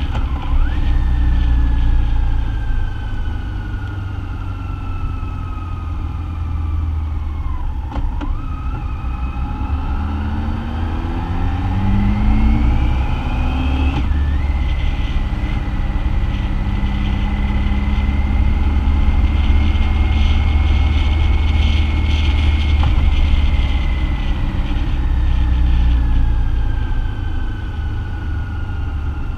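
BMW motorcycle engine under way, its whine falling as it eases off, then rising as it speeds up, dropping suddenly about fourteen seconds in, holding steady, and falling away again near the end as it slows for a roundabout. A steady low rumble of engine and wind runs underneath.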